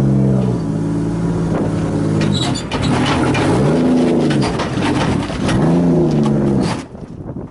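A vehicle engine running steadily, then revved twice, each rev rising and falling in pitch. It cuts off suddenly near the end.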